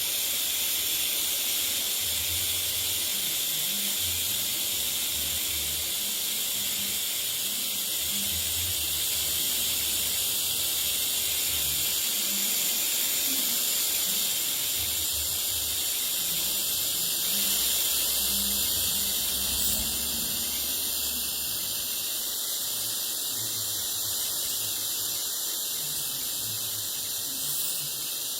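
TIG welding arc giving a steady, unbroken hiss.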